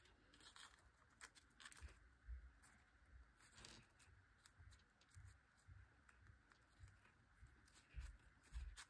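Near silence, with faint rustles and taps of fingers pressing and smoothing glued cardstock pieces onto a table, and a couple of soft low thumps near the end.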